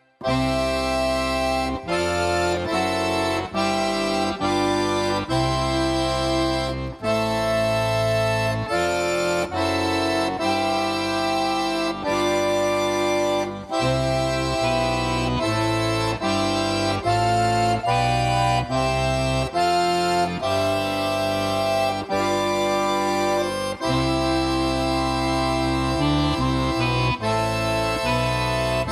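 Three accordions playing a classical trio piece together: full held chords over a bass line, changing every second or two.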